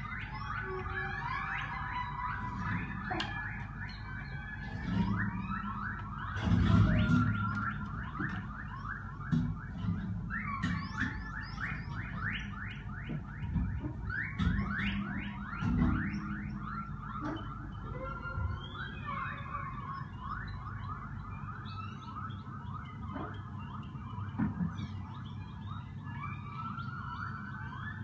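Live collective free improvisation: dense, overlapping short high tones that keep sliding in pitch, over a low hum, with a few louder knocks, the loudest about seven seconds in.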